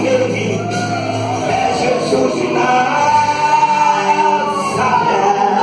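Live gospel music: a man singing long, sliding notes over electronic keyboard accompaniment, amplified through a PA system.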